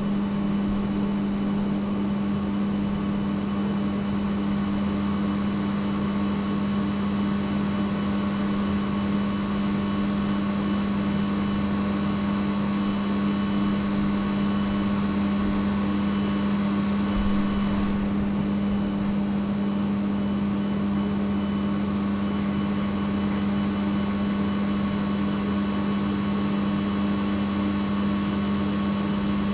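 Steady machine hum with one strong low tone and fainter overtones, unchanging in pitch and level.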